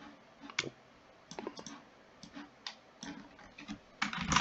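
Scattered clicks of a computer mouse and keyboard, a few a second, with a louder cluster near the end.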